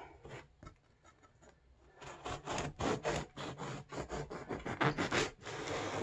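A long bread knife sawing through a loaf of home-baked white bread on a wooden cutting board: quick back-and-forth rasping strokes through the crust and crumb, starting about two seconds in after a few light taps.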